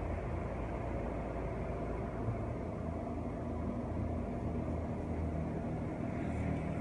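Steady low background rumble with no distinct events, and a faint click or two near the end.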